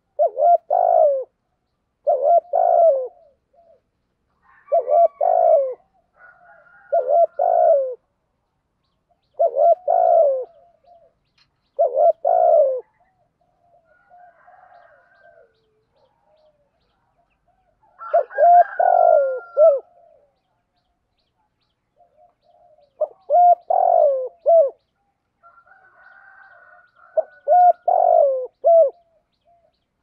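Spotted dove cooing in the 'thổ' voice used as a lure call: about nine loud cooing phrases every two to three seconds, with a longer pause midway and softer calls in the gaps.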